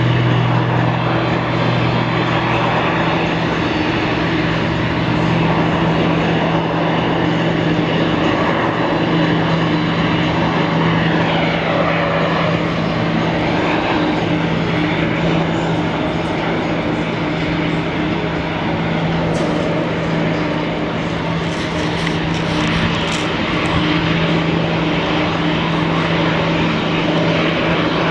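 Boeing 747-400 freighter's four turbofan engines running loud and steady. About ten seconds in, a high whine slides down in pitch.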